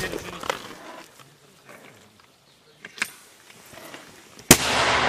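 A mortar fires about four and a half seconds in: one sharp, loud report followed by a long rolling echo that dies away slowly. Before it, the echo of an earlier shot fades out over the first second, with a few faint knocks and a small crack about three seconds in.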